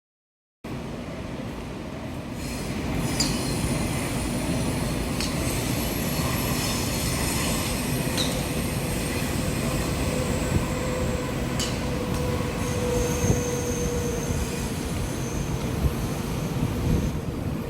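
Typhoon-strength wind blowing hard, a steady loud rush with faint high whistling tones and scattered sharp clicks and rattles.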